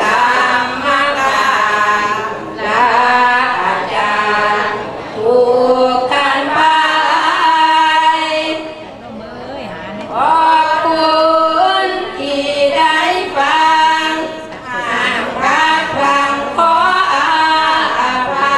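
Women's group singing sarabhanya in unison in the Isan (northeastern Thai) melody, without accompaniment, in long held phrases with a short breath pause about halfway through.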